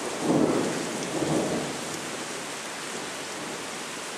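Heavy rain falling steadily in a thunderstorm, with thunder rumbling just after the start and again about a second later.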